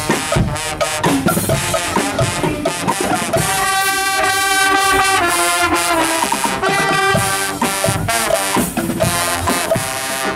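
Guggenmusik carnival band marching and playing: trumpets, trombones and sousaphone over a drum beat, with a long held brass chord about four seconds in.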